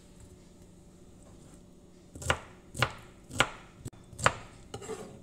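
Kitchen knife chopping through a peeled pineapple onto the cutting surface: four sharp chops roughly half a second apart, starting about two seconds in, then a few lighter knocks near the end.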